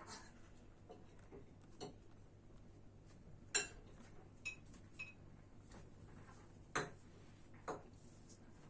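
Scattered sharp taps and clinks against a dish, about seven in all at irregular gaps, the loudest about three and a half seconds in.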